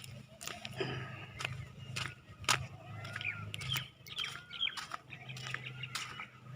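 Birds chirping in short repeated calls, mixed with scattered sharp clicks and a steady low hum.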